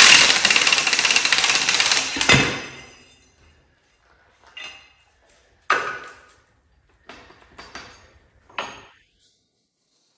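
A power wrench runs for about two and a half seconds, backing out a rusty bolt that holds the rear leaf spring, and ends with a clunk. A few scattered metal clanks follow.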